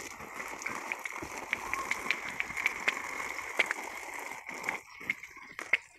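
Water being poured onto plants in pots, a steady splashing and trickling that stops about four and a half seconds in, followed by a few light knocks.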